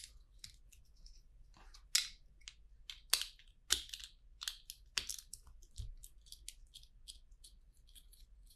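LEGO plastic bricks being handled: a run of small clicks and rattles, with a few sharper snaps about two, three to four, and five seconds in.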